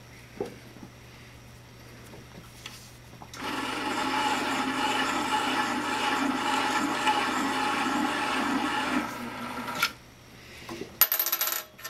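Electric motor of a custom tube beading machine running as its rollers press a bead into a stainless steel tube: a steady pitched hum that starts about three and a half seconds in and stops after about six seconds. A few light metallic clinks follow near the end.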